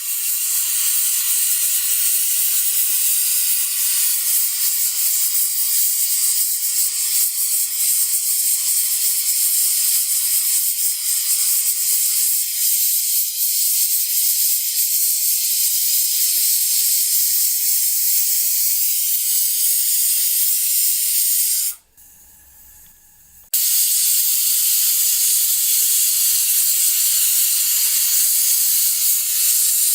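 Pressure cooker releasing steam through its valve: a steady, loud, high hiss. It cuts out suddenly for about a second and a half about two-thirds of the way through, then resumes as before.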